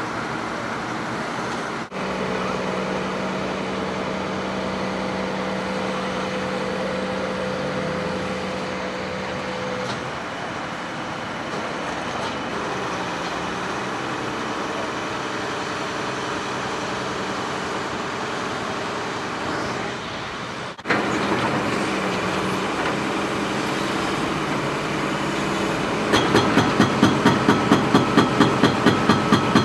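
Diesel engine of a Poclain wheeled excavator running steadily. About 26 seconds in, its hydraulic breaker starts hammering on concrete in even, rapid blows, about three a second, the loudest sound here.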